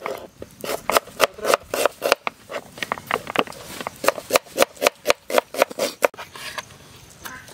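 Kitchen knife slicing red onions on a wooden cutting board: a steady run of chopping knocks, about three or four a second, each stroke hitting the board. The chopping stops about six seconds in.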